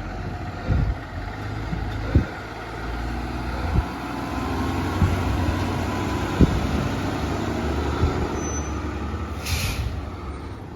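Fire engine running steadily on the move, with several sharp thumps scattered through it and a short hiss about nine and a half seconds in.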